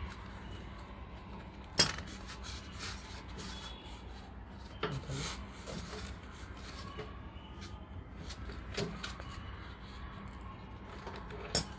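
Clicks, taps and rubbing of copper refrigerant pipes and brass flare-nut fittings handled onto the service valves of a split AC outdoor unit, with the sharpest click about two seconds in and a few more spread through.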